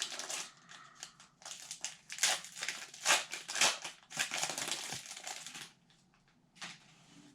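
Hockey-card pack wrapper being torn open and crinkled in the hands, an irregular run of rustling and crackling that stops a little over two-thirds of the way through.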